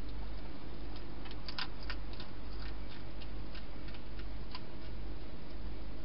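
European hedgehog eating at a bowl, a run of small irregular crunching clicks, loudest and closest together about one and a half seconds in. Under them is a steady hiss and a low hum.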